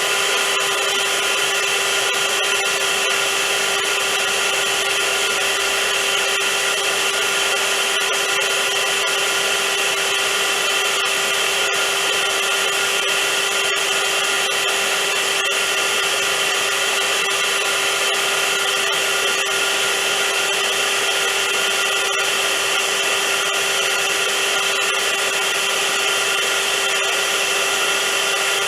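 Vacuum cleaner running continuously, a steady loud motor whine and rush of air with no change in speed.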